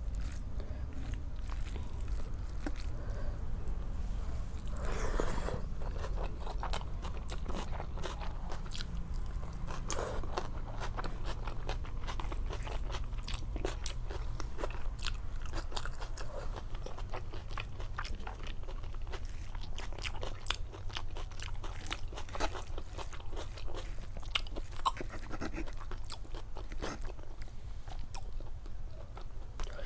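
Close-miked eating sounds of a person chewing a meal of rice and curry: many small wet clicks and crunches of the mouth at work, with one louder noisy burst about five seconds in. A steady low hum lies underneath.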